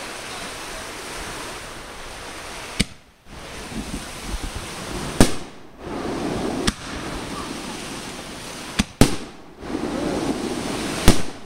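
Aerial fireworks bursting: about six sharp bangs at irregular intervals, two of them in quick succession, over a steady background hiss.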